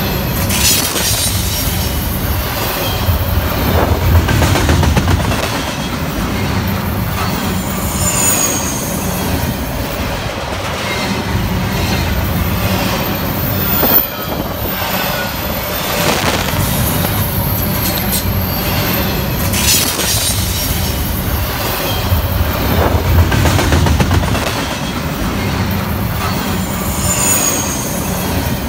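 BNSF intermodal freight train's well cars rolling past close by: a steady rumble of steel wheels on the rails with clickety-clack over the joints. A few brief high-pitched wheel squeals come and go.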